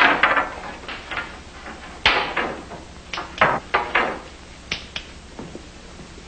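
Wooden boards knocking and scraping as they are pushed and handled on a workbench: a string of irregular knocks and clatters, loudest near the start and again about two and three and a half seconds in, thinning out near the end.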